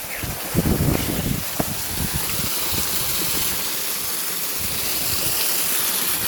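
Water from an irrigation ditch pouring over small waterfalls, a steady rushing hiss, with low rumbling buffets on the microphone in the first two seconds.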